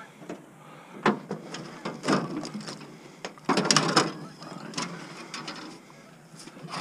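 Clanks and rattles of scrap metal from a torn-down air conditioner being handled, with scattered knocks and a louder rattling clatter about three and a half seconds in.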